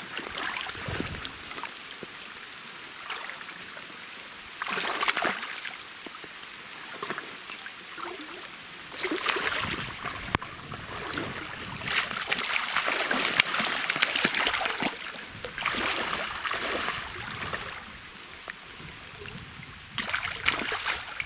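Shallow river water flowing, with bouts of splashing in the shallows that come and go several times.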